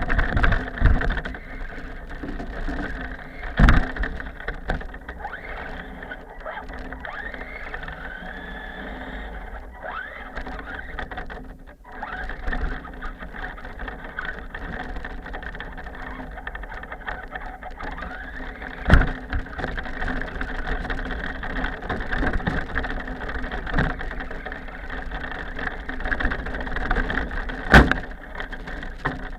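RC car's motor and drivetrain whining as it is driven through snow, the pitch rising and falling with the throttle, with three sharp knocks as the car bumps or lands.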